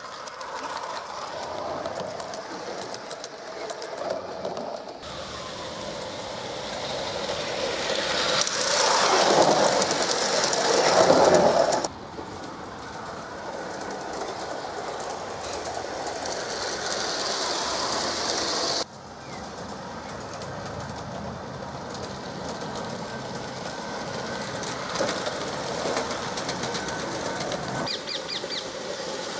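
Gauge 1 model trains running on garden railway track, the wheels rolling on the rails. The sound grows to its loudest as a train passes close, about ten seconds in, then changes abruptly.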